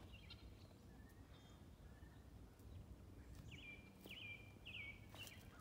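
Near silence with a faint songbird chirping: a quick run of short repeated notes in the second half.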